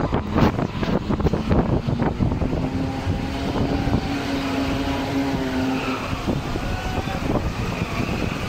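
Steel roller coaster train running along its track: a rumble with a droning whine whose pitch shifts as it goes.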